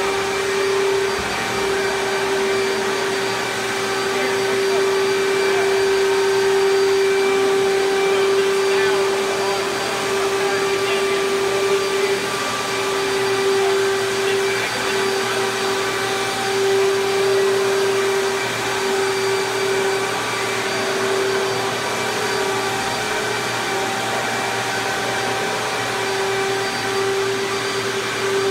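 Steady drone of a running machine motor, vacuum-like, with a constant hum that wavers a little in level but does not stop.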